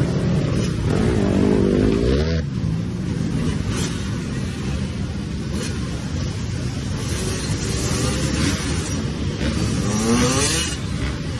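Several dirt bike and four-wheeler (ATV) engines running and revving on the street, their pitch rising and falling as they rev up about a second in and again near the end.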